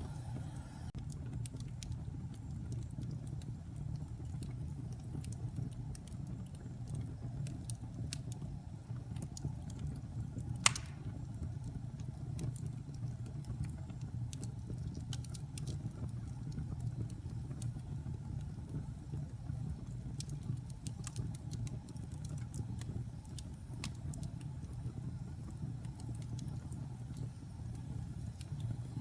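Fireplace fire burning with a steady low rumble and scattered crackles, and one loud pop about eleven seconds in.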